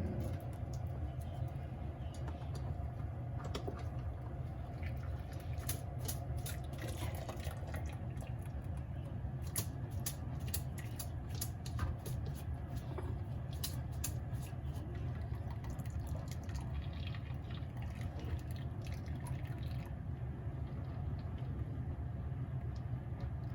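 Hot tengusa seaweed broth for tokoroten dripping and trickling, with many small clicks and drops over a steady low rumble.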